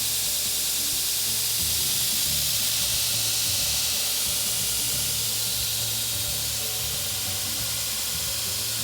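Brodbeck Ironworks 2x72 belt grinder running free at the top of its variable-speed range: a steady hiss from the abrasive belt over a low motor hum.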